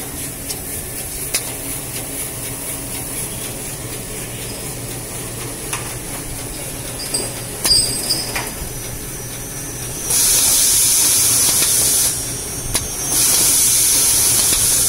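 Paper log saw machine on a toilet paper production line, running with a steady hum and a few sharp clicks. About ten seconds in come two loud hissing stretches of about two seconds each, separated by a short break.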